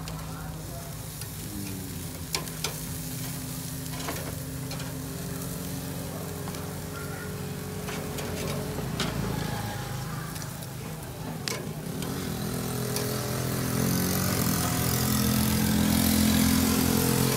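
A motor running steadily with a low, even hum that grows louder over the last few seconds, over a faint hiss and a few scattered clicks.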